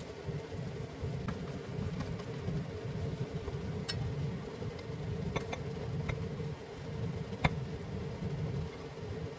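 A steady low machine hum, with scattered light clicks and taps as wooden chopsticks push shrimp and vegetables off a frying pan onto pasta in a ceramic dish. The sharpest tap comes about seven and a half seconds in.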